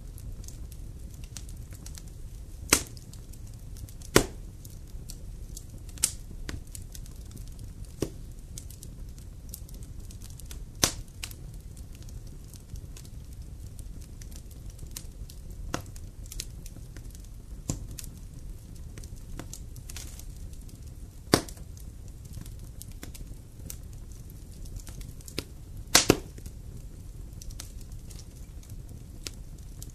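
Wood campfire crackling: irregular sharp pops and snaps every second or two, including a loud double pop near the end, over a steady low rumble.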